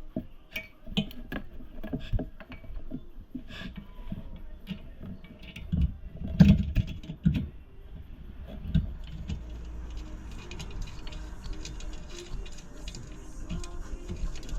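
Scattered clicks, knocks and light metallic clatter of hands and tools working on the compressor's parts, with a few louder knocks about six to seven seconds in.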